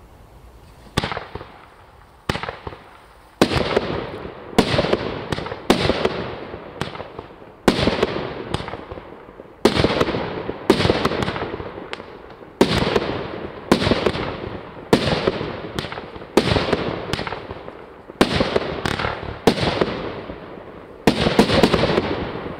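A 25 mm, 16-shot consumer firework cake firing its shots one after another, about one a second. Each shot is a sharp report that trails off over about a second.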